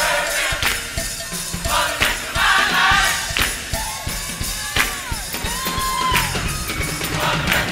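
Gospel choir singing with a live band, a drum kit keeping a steady beat under the voices. The choir comes in in short phrases, with gliding held notes between them.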